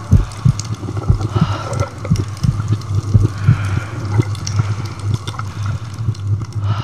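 Soundtrack ambience: a low steady hum with irregular dull thumps, a few a second, that fades out at the end.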